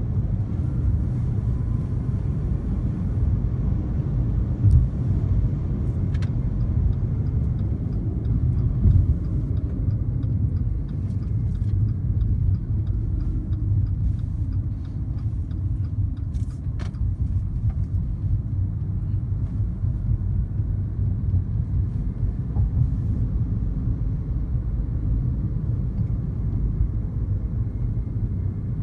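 Steady low road and tyre rumble of a Fiat 500e electric car driving at speed, heard inside the cabin through a dashboard-mounted phone, with no engine note. A few brief knocks break through, about five, six and sixteen seconds in.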